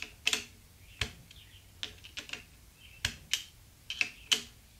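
A click-type torque screwdriver, preset to 25 inch-pounds, tightening steel scope ring screws: about nine sharp, irregularly spaced clicks, some in close pairs. Each click is the driver breaking over as a screw reaches its set torque.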